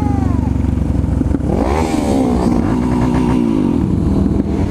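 Motorcycle engine running under way, revving up sharply about a second and a half in, then its pitch falls away gradually as the throttle is eased.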